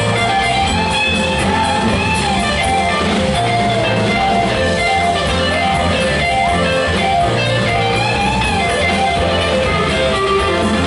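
Live rock band playing loud and steady: electric guitars over bass, drums and keyboards, with a lead line that bends up and down.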